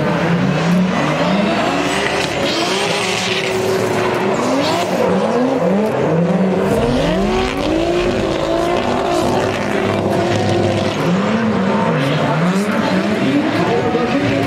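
Two drift cars sliding in tandem, their engines revving up and falling back again and again as the throttle is worked, with tyre squeal. The loudest hiss of the tyres comes about three seconds in.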